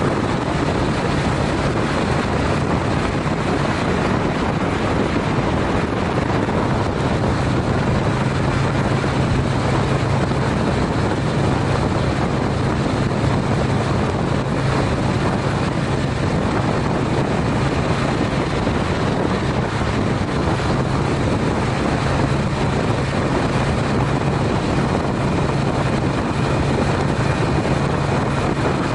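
Honda CTX700N motorcycle's parallel-twin engine running steadily at highway speed, a low drone under a constant rush of wind and road noise.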